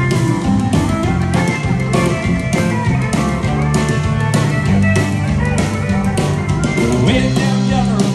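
Live band playing rock music with a steady beat.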